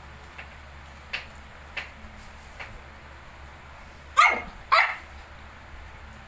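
A dog barks twice, loudly, each bark dropping in pitch, after four faint, short, high yips.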